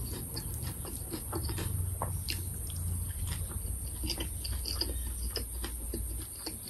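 Close-up chewing of sticky rice with mackerel chili paste: a run of small wet mouth clicks and smacks.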